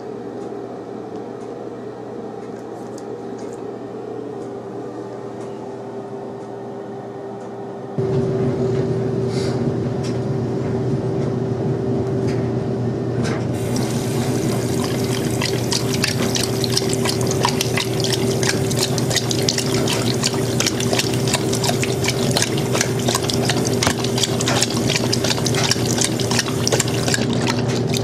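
Bathroom sink tap running into the basin, with a steady hum. About eight seconds in the flow gets louder, and from the middle on a German Shorthaired Pointer laps at the stream, its tongue splashing the water in quick little splatters.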